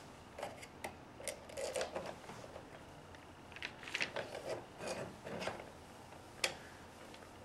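Scattered scraping, rubbing and light clicking as a reinforcement is slid by hand over the joint of a busway housing, with one sharper click about six and a half seconds in.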